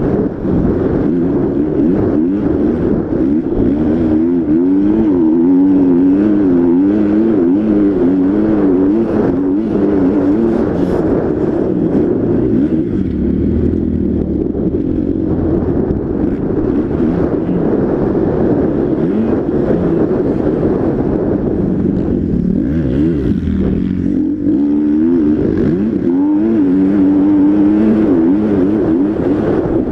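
Motocross bike engine under race throttle, heard close up from on the bike, its revs rising and falling over and over with throttle and gear changes. It eases off for a few seconds around the middle and again a few seconds before the end.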